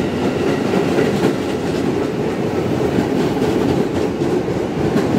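KRL commuter electric train moving past along the station platform: a steady, loud rumble of wheels on the rails with light clacking.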